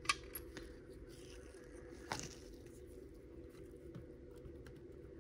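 Faint handling sounds of gloved hands working at an old plastic transistor-radio case and its circuit board: a sharp click right at the start, another about two seconds in, then a few lighter ticks, over a low steady hum.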